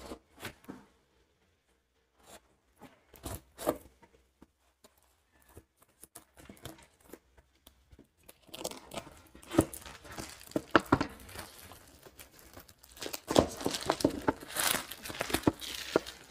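Clear plastic shrink-wrap being slit and peeled off a smartphone box. First come scattered small scrapes and taps as the film is cut, then from about eight seconds in a long run of crinkling and tearing as the wrap is pulled away.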